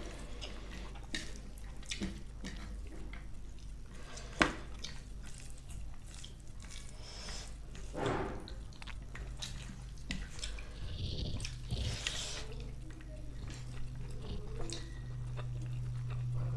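Close-up eating sounds: chewing and soft wet mouth smacks of rice and chicken curry, with small scattered clicks and one sharp click about four seconds in.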